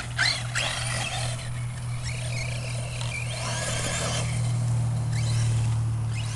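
Brushless electric motor of an Arrma Talion 6S RC truck whining, rising and falling in pitch with the throttle as it drives through high grass, over a steady low hum.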